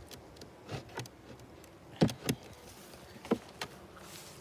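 A series of light, sharp wooden knocks and clicks, about seven in all with the loudest pair about two seconds in: a beehive's frames, boxes and hive tool being handled and set down during an inspection.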